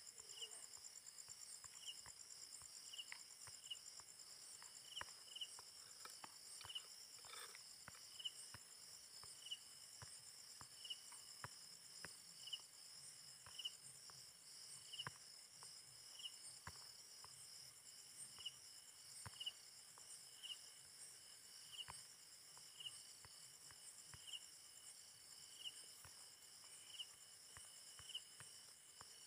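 Faint insect chorus: a steady high-pitched trill with a short chirp repeating about once a second, and scattered soft clicks.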